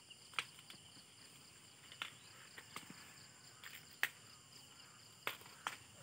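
Faint, steady high-pitched insect chorus, broken by about six short sharp snaps and crackles of dry corn stalks and leaves being pushed through and handled.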